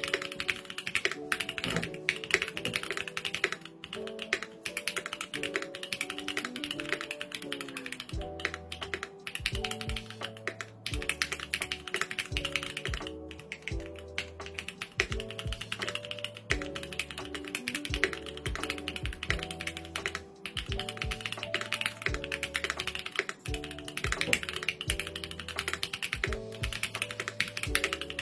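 Continuous fast typing on a Mode Designs Sonnet custom mechanical keyboard with stock Popu linear switches and GMK Hooty keycaps, a dense run of keystroke clacks. Background music plays under the typing, with a bass line joining about eight seconds in.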